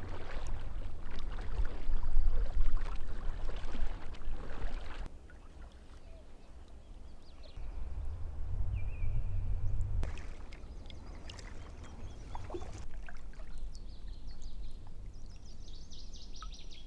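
Paddle strokes splashing water beside an inflatable packraft, with wind rumbling on the microphone in gusts during the first five seconds and again after about eight. A bird chirps repeatedly near the end.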